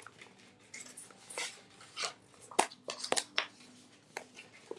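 Hardcover notebooks and a ballpoint pen being handled on a desk: covers sliding and rustling against each other, with a few sharp clicks and taps a little past halfway.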